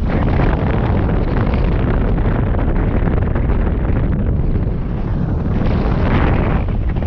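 Wind noise on the microphone of a hang glider in flight: airflow buffets the mic in a loud, steady rushing rumble that turns a little brighter about six seconds in.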